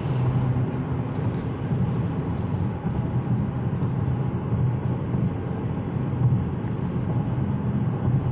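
Steady engine and road noise heard from inside the cabin of a 2019 GMC Terrain Denali with a 2.0-litre turbo four-cylinder, driving along at an even pace.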